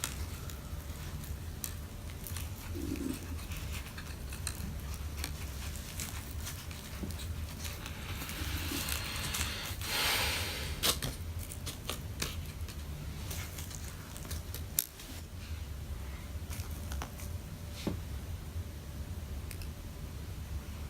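Light scattered clicks and small scrapes of hands and a tool working on an open MacBook Pro, routing a cable and seating parts, with a brief rustle about ten seconds in, over a steady low hum.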